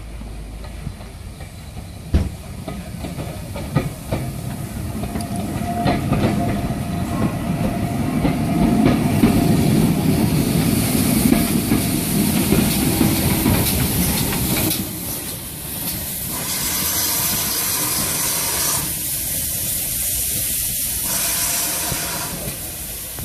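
Steam autotrain, a small tank locomotive with an autocoach, running past: wheels rumbling and clicking over the rail joints, loudest about ten seconds in. A steady steam hiss comes in as the engine passes and carries on after the rumble fades.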